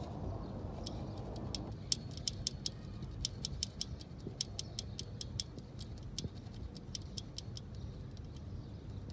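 Chrysler 3.6L Pentastar V6 running at a low, steady idle, with light, sharp, irregular high-pitched ticking several times a second from about a second and a half in.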